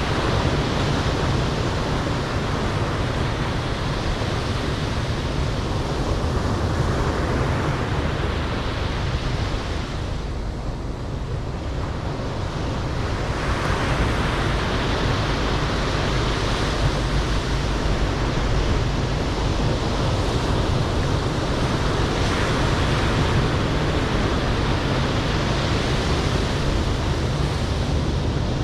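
Ocean surf breaking and washing up a sandy beach, a steady wash of noise that thins for a few seconds about ten seconds in and then builds again, with wind rumbling on the microphone.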